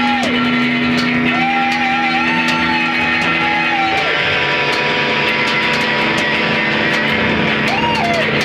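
Noise music from a live set: a dense, steady droning wall of sound with a wavering high tone that is held for a few seconds and bends down about four seconds in, coming back briefly near the end, over scattered crackling clicks.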